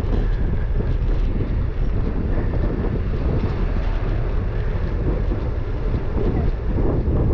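Wind rushing over the microphone of a GoPro Hero9 Black on a moving bicycle, mixed with the rumble of the ride on the street, a steady low noise.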